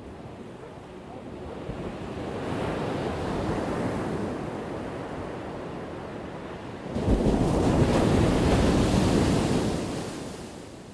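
Ocean waves breaking and washing up the shore in two swells: a gentle one that builds and eases, then a louder one that comes in sharply about seven seconds in and fades away.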